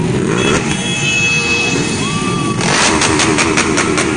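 Motorcycle engines running in a group of sport bikes riding together through traffic. About two and a half seconds in, music with a fast, even beat comes in over the engine noise.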